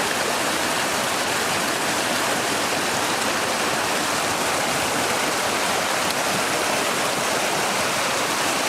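Floodwater of a swollen creek rushing past, a steady, loud roar of moving water.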